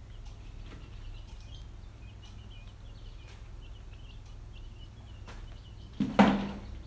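Newly hatched quail chicks peeping faintly and repeatedly, with light handling clicks. About six seconds in, a loud thump as a hand reaches down into the cardboard box.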